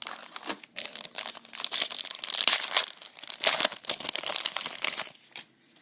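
Crinkling and tearing of a trading-card pack wrapper as it is ripped open and handled, a dense crackle that is loudest in the middle and stops near the end.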